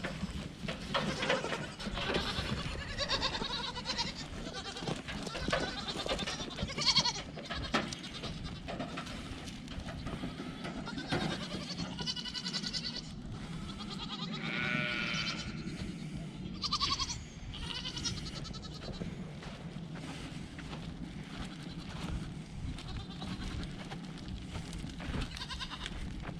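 Nigerian Dwarf goats bleating on and off, several separate calls, over scattered small knocks and rustling.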